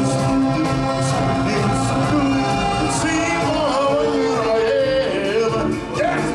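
Live stage-show music with singers: several held voices and instruments over a steady accompaniment, the melody moving up and down.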